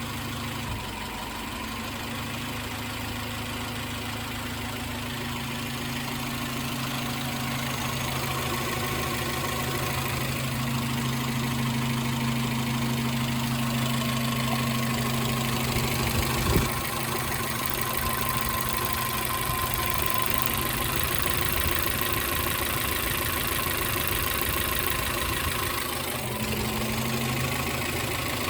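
Suzuki X-90's 1.6-litre four-cylinder engine idling with a misfire, getting a little louder over the first dozen seconds. One sharp knock stands out about two-thirds of the way through.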